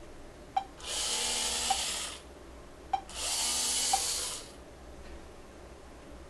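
Hobby servo motors driving the wheels of a small robot car, whirring in two bursts of about a second and a half each, with a sharp click as each burst begins and another partway through.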